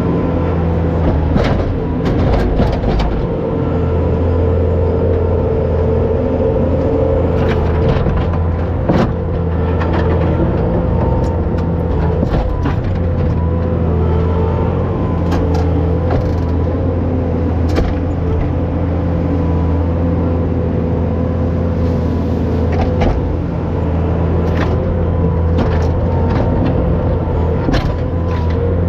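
A farm machine's engine running steadily, with a constant whine over its drone and scattered sharp metallic clanks and knocks.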